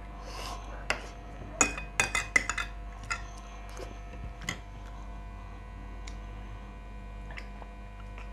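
Metal spoon and fork scraping and clinking against a plate. A quick run of clinks comes about one and a half to two and a half seconds in, then a few more, then only faint occasional taps.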